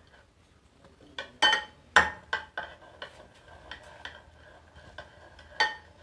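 A spoon beating an egg mixture in a glass bowl, clinking and knocking against the glass in quick uneven strokes. The loudest knocks fall about one and a half to two seconds in, with lighter taps between and another loud clink near the end.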